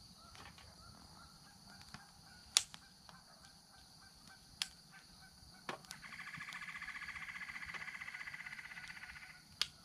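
A squirrel chattering in a fast, even trill for about three and a half seconds, starting about six seconds in: an alarm or scolding call at a person nearby. Before it, a few sharp single pops from a small twig fire.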